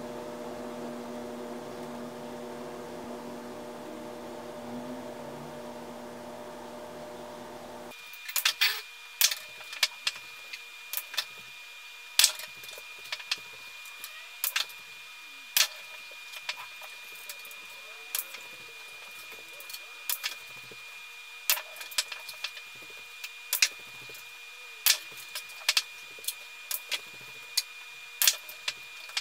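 A steady hum with several steady tones, then from about eight seconds in a fast, irregular run of sharp clicks: pool balls and cue tip striking balls, sped up, over a faint steady high whine.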